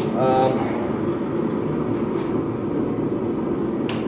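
Blacksmith's forge running with a steady rushing noise while a rail spike heats in it, with a single sharp click near the end.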